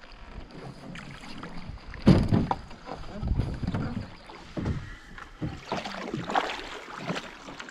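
Canoe being paddled: irregular paddle strokes and water splashing, with a heavy bump about two seconds in.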